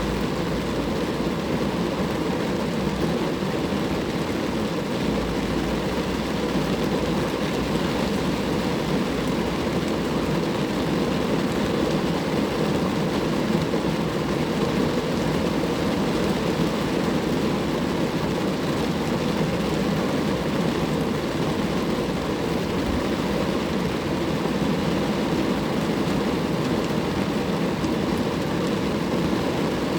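Steady rain falling on a car, an even, unbroken patter with most of its weight low in pitch.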